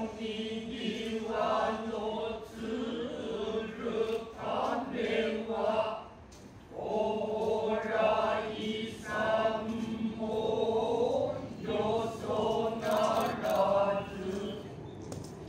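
Noh chanting (utai): a male voice sings long, drawn-out, wavering phrases in the deep, measured style of Noh, breaking off briefly about six seconds in before the chant resumes.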